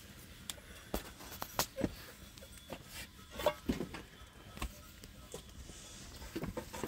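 Scattered light crackles, clicks and taps from thin flatbread being baked on a round metal griddle over an open wood fire, with the fire and the wooden turning stick making the sharp sounds. The strongest knocks come about one and a half and three and a half seconds in.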